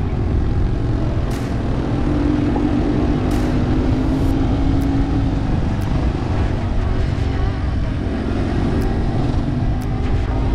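Yamaha TW200's single-cylinder engine running steadily while the bike is ridden, with heavy low wind rumble on the microphone. A few sharp clicks are heard here and there.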